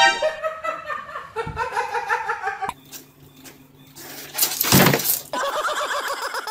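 A person laughing, then, after a short quieter stretch, a sudden noisy crash-like burst lasting about a second, followed by more laughter.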